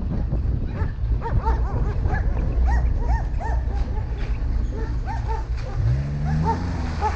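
A dog barking in quick, repeated yips, about two or three a second, over a steady low engine rumble that rises in pitch about six seconds in.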